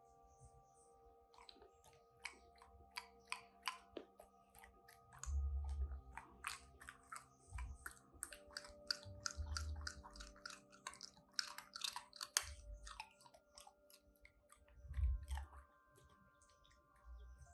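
A cocker spaniel chewing and crunching ice cubes: quick sharp crunches one after another, with a few heavier thuds of the jaws, easing off near the end.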